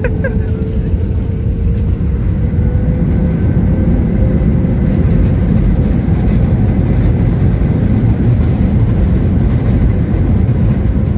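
Jet airliner cabin noise as the plane rolls along the runway: a steady low rumble of the engines and airflow, with a faint tone that slowly rises in pitch.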